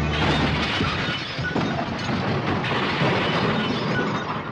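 Cartoon crash sound effect: a long, noisy run of smashing and clattering, with a change in the din about one and a half seconds in and again a second later.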